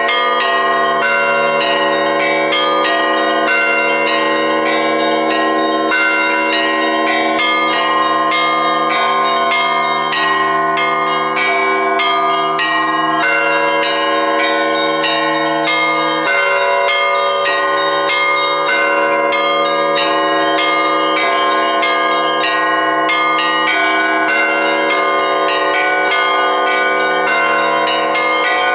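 Russian church bells ringing together, with many bells struck in a quick, continuous rhythm over the lasting hum of the larger bells.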